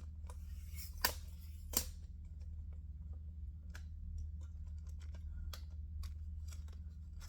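Scattered light clicks and knocks of a camera tripod being adjusted, with two louder sharp clicks about a second in and shortly after, over a steady low hum.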